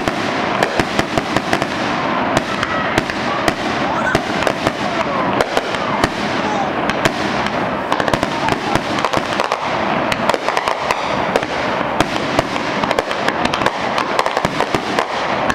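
Fireworks display: a continuous barrage of aerial shells bursting, with dense crackling and many sharp pops and bangs in rapid succession.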